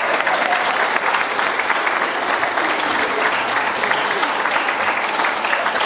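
Audience applauding: many people clapping together, dense and steady, with no break.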